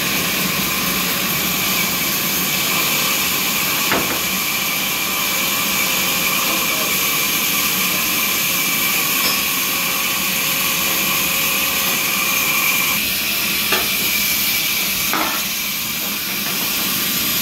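Sawmill machinery running steadily with a hiss and a few steady tones, broken by three short knocks, at about 4 s, 13.7 s and 15.2 s.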